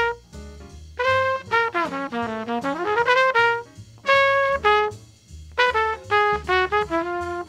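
Trumpet playing a jazz solo in quick phrases: a run that dips low and climbs back up, a held note, a short pause, then a fast string of notes.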